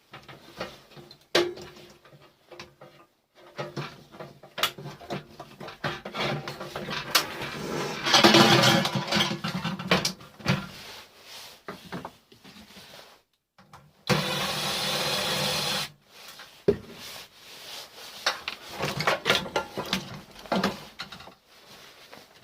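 Metal casing and parts of a microwave clattering and knocking as it is taken apart by hand, with many short knocks and clicks. About fourteen seconds in, a steady whirring hiss runs for about two seconds and cuts off suddenly.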